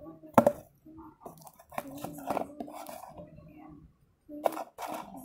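Close handling clicks and knocks as hair tools and the mannequin head are handled, over quiet talking in the background. A sharp knock about half a second in is the loudest sound, with a few more clicks near the end.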